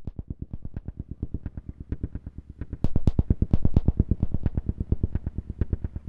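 Music intro: a fast, even pulsing beat that fades in from silence and steps up in loudness about three seconds in.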